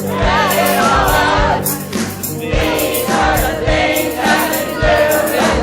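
Choir singing a musical-theatre number over band accompaniment, with drum hits keeping a beat.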